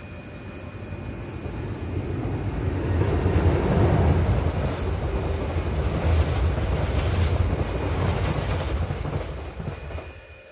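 Mugunghwa-ho passenger train passing close by: a locomotive-hauled train's rumble and rail noise swelling over the first four seconds as it approaches. The coaches run past with repeated wheel clicks, and the sound falls away quickly near the end as the last car goes.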